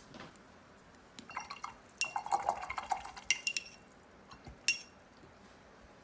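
Small hard drawing tools being handled and set down on the desk: a few light clicks, a clattering rattle of clinks lasting about a second and a half, then one sharp click.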